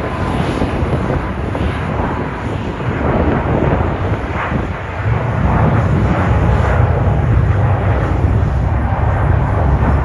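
Jet airliner engines rumbling, growing louder about halfway through, with wind buffeting the microphone.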